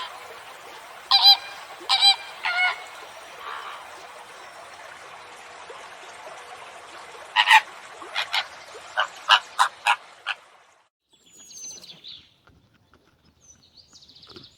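Birds calling over a steady background hiss, in the manner of geese or other fowl: three short calls in the first few seconds, then a quick run of short calls around the middle. Near the end the hiss drops away and only faint chirps remain.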